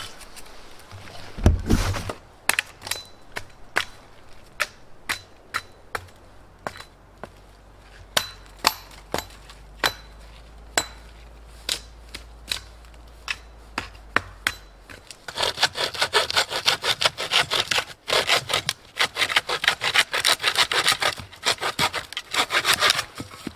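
Hand saw cutting firewood: a string of sharp knocks about once a second, then about eight seconds of rapid back-and-forth sawing strokes through wood.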